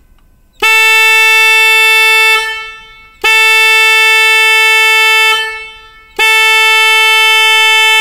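K8003 snail-type electric car horns sounding three steady blasts of about two seconds each, each on a single unwavering pitch that cuts in sharply and tails off.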